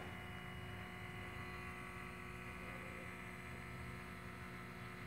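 A faint, steady electric hum with several fixed tones from under a parked, switched-off 2014 Toyota Sienna, a sound the owner likens to a pump running.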